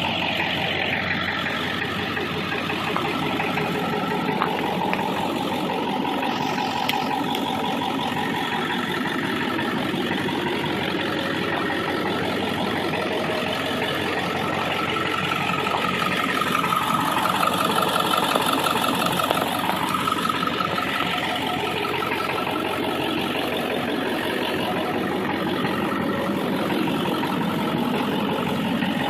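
2002 Ford F250's 7.3 L Powerstroke turbo-diesel V8 idling after a warm restart, with a knock running through its clatter. The owner can't tell whether the knock is an injector or the engine itself, and hopes it is an injector. The engine gets a little louder for a few seconds past the middle.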